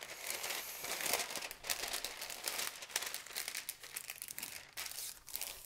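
Parchment paper crinkling and crackling as it is smoothed and pressed down into a greased metal sheet pan.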